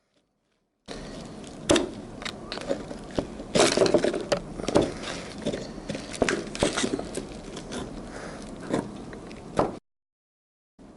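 Hand work on small parts: repeated clicks, knocks and scrapes over a steady hiss. The sound drops out to dead silence for about the first second and again near the end.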